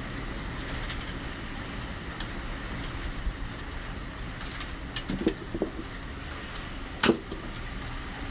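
Typhoon wind rushing steadily over and around a building, heard from indoors. A few short knocks come about five seconds in, and a louder, sharper one about seven seconds in.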